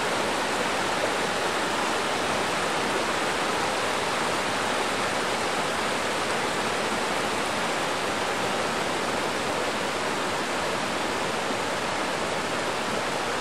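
Steady rush of river water the day after heavy storm rain, an even unbroken noise.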